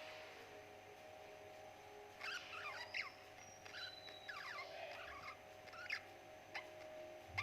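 Budgerigars giving soft, short chirps in quick clusters over a steady low hum.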